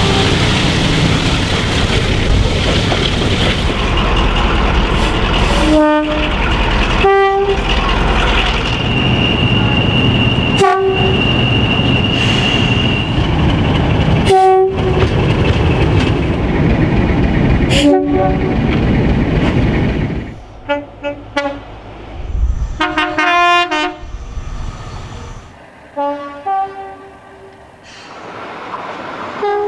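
Diesel train horns in a string of short clips. First, the loud rumble of a train running through a tunnel, broken by several brief horn blasts. From about twenty seconds in, quieter scenes with a cluster of two-tone horn blasts.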